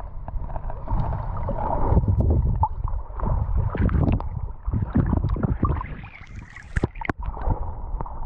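Water sloshing and gurgling around a camera held just under the surface in shallow water, heard muffled through the waterproof housing, with many short knocks and bumps.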